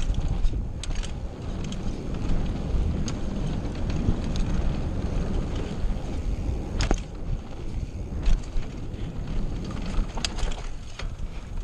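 Mountain bike riding fast downhill on a dry dirt trail: a steady low rumble of tyres over the ground, broken by scattered sharp clacks and rattles from the bike over bumps.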